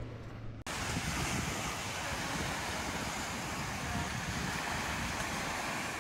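Steady, even rushing noise, the kind made by wind or surf, that starts abruptly about half a second in.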